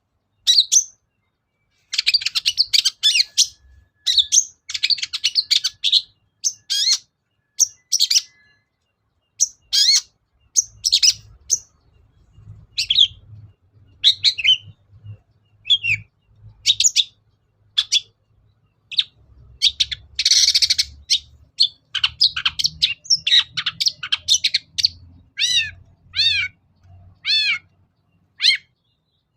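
Long-tailed shrike (cendet) singing: a fast, varied string of short chirps and harsh rasping notes, ending with a run of four repeated falling whistles.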